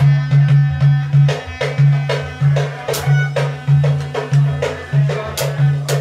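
Upbeat music with a fast, steady drum beat and percussion over a pulsing bass line.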